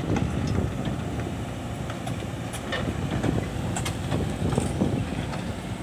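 Crawler excavator's diesel engine running steadily while it carries a steel sand-sieve frame, with scattered light metallic clicks and clanks over the hum.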